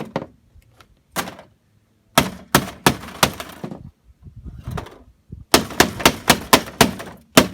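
Repeated sharp blows smashing vintage circuit boards and their glass-like white components. There is a single hit about a second in, then a quick run of about five strikes, and a faster run of about eight strikes near the end.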